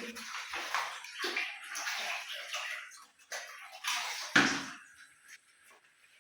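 Water running and splashing unevenly, then a sharp knock about four and a half seconds in.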